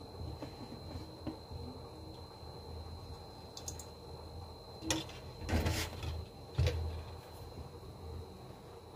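Quiet kitchen stove-side sounds: a steady low hum with a few short knocks and a brief clatter about five to seven seconds in.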